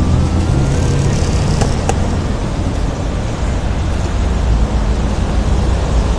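Steady rumble of road traffic from passing vehicles, with a faint rising whine in the first second.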